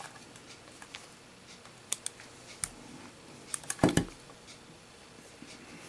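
Scattered light clicks and taps from a Zippo lighter being handled, with a louder cluster of knocks about four seconds in.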